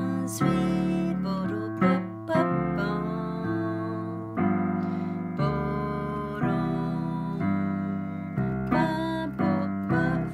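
Digital piano playing a jazz tune in chords, a new chord struck about once a second and held until the next, with both hands on the keys.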